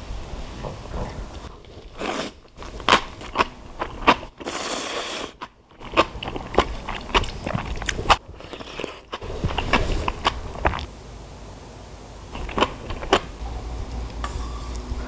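A person biting and chewing crisp food close to the microphone, with a string of sharp crunches from about two seconds in until about eleven seconds in.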